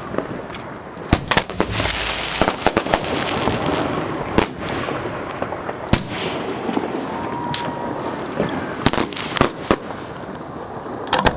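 Aerial fireworks shells firing and bursting at close range: a string of sharp bangs at uneven intervals, with a dense cluster and a crackling hiss about two to three seconds in.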